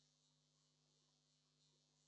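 Near silence: only faint steady electronic hiss and hum from the recording chain.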